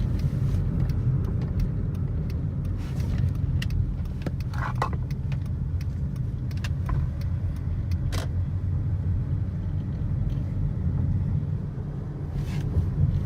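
2013 Hyundai Sonata driving: a steady low road and drivetrain rumble, with scattered sharp clicks at irregular intervals. The clicking is the kind the owner listens for as the sign of a bad CV axle.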